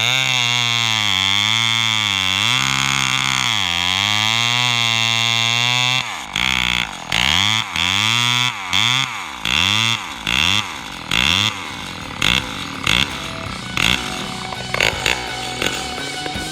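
Lombard AL42 two-stroke chainsaw running at high revs, engine speed wavering up and down. About six seconds in it drops back and is blipped on the throttle, a string of short revs less than a second apart that grow weaker toward the end.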